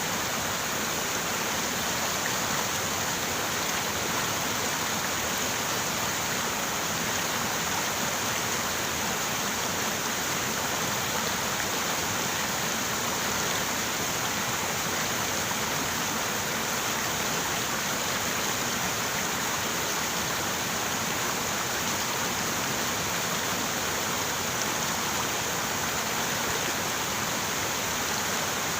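River water running, a steady, unbroken rush with a hissy, bright edge and no single splashes standing out.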